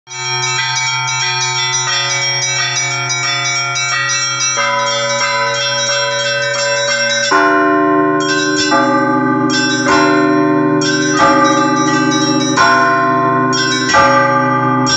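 Russian Orthodox church bells being rung by hand: small bells struck in a quick, lively pattern over the steady hum of a larger bell. About seven seconds in, the ringing grows louder as heavier bell strokes come in roughly every second and a half beneath the small-bell pattern.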